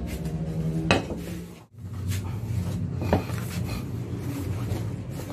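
A stiff sheet of flattened PVC pipe is handled on a plywood board, giving a sharp knock about a second in and another about three seconds in, over a steady low hum.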